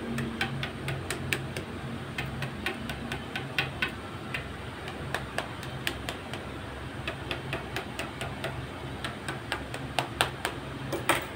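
Fork pricking rounds of pizza dough on a metal pizza pan: the tines click against the pan through the dough in quick, irregular taps, a few a second, with the loudest click near the end.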